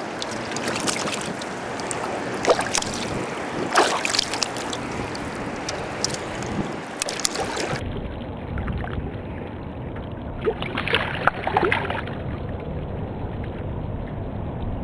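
River water sloshing and splashing against the side of a fishing boat, with sharp splashes in the first half. After a cut about halfway through, the sound turns duller, with a steadier low rumble.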